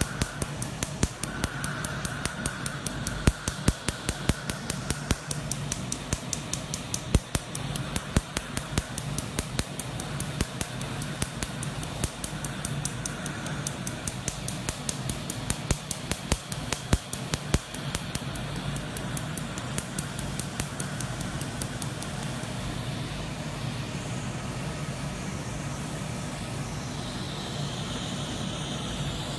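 Tattoo removal laser firing rapid pulses into skin, each pulse a sharp snap, over a steady low hum. The snaps thin out and stop about three-quarters of the way in.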